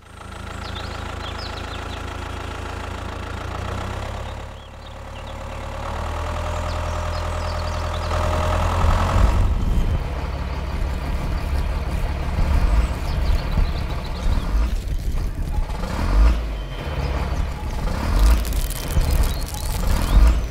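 Tractor engine running with a steady low rumble, which dips briefly and then comes back louder and rougher from about six seconds in.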